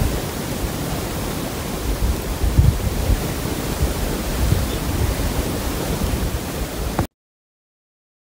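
Wind buffeting the microphone: a steady rushing hiss with gusty low rumbles, which cuts off suddenly about seven seconds in.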